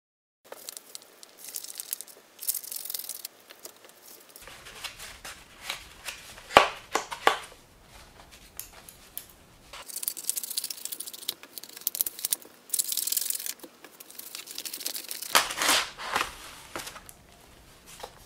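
Brown kraft-paper mailer being cut open with scissors and torn, its paper crinkling and rustling in several stretches, with a few sharp knocks and clatters of handling.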